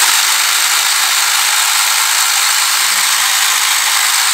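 Small electric motor driving the 3D-printed plastic gears of a DIY turntable, run at full power from an 11.1 V LiPo battery, running loudly and steadily with a dense whirring rattle.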